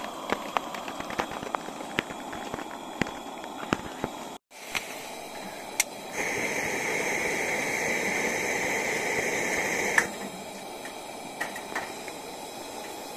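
Coleman Sportster DX camp stove burner hissing. It grows louder for about four seconds as the valve is turned, then drops back at a click to a lower hiss that keeps going: the flame will not adjust properly and does not go out with the valve off. Before it, scattered water drips tap over a steady hiss.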